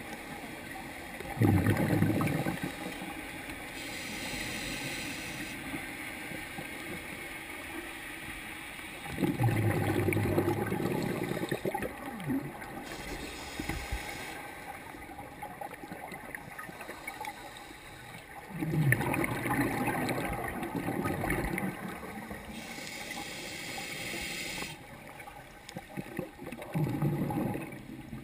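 Scuba diver breathing through a regulator underwater: a rush of exhaled bubbles four times, about every eight to nine seconds, with a hiss from the regulator on each inhale in between.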